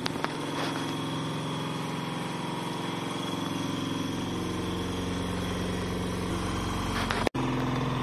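Croma 6.5 kg semi-automatic twin-tub washing machine's spin-dryer motor running steadily, the drum spinning to dry the clothes, with a low hum that builds from about halfway.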